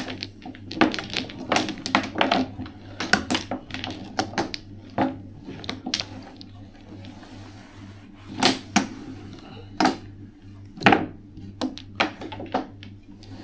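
Mahjong tiles clacking on a table: irregular sharp clicks as tiles are laid down and handled, over a steady low hum.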